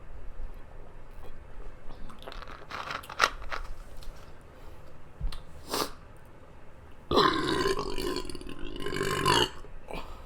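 Chewing noises while eating noodles, then one long, loud burp of over two seconds starting about seven seconds in.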